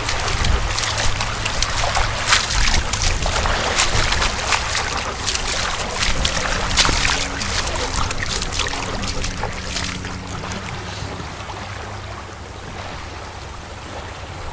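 Small waves lapping and splashing at the water's edge of a sandy marsh shore, with wind rumbling on the microphone; the splashing eases off in the last few seconds.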